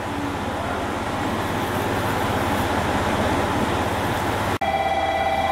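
KiHa 200 series diesel railcar's engine running at the platform, a steady rumble growing slowly louder. After a brief break near the end, a steady electronic tone starts.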